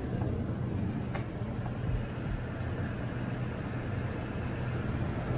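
Toyota Sequoia's V8 engine idling steadily, with a single short click about a second in.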